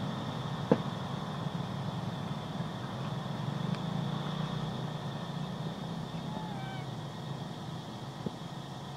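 Steady low rumble of distant road traffic with a faint high hum above it. A single sharp click comes a little under a second in, and a faint short wavering chirp comes around six and a half seconds.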